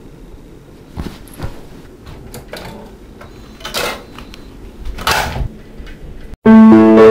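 Clicks and knocks of a CD being handled and loaded into a portable CD player, then, about six seconds in, music cuts in suddenly at very high volume with held keyboard notes, the loudest sound here.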